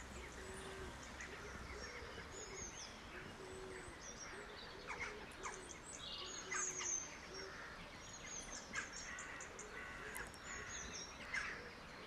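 Birds chirping and singing in short scattered calls, with a faint low note repeating about twice a second underneath.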